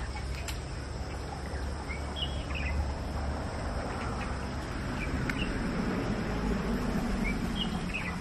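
Insects buzzing steadily, with a few short bird chirps, over a low rumble.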